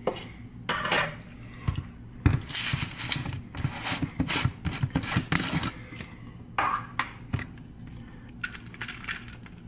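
Rapid clinks, taps and knocks of kitchen utensils and containers being handled on a countertop. They come thickest for a few seconds in the middle, then thin out to a few scattered knocks.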